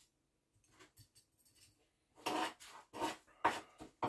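Gritty top-dressing soil being scooped and spread over a bonsai pot: a few faint rustles, then about four rasping scrapes in the second half.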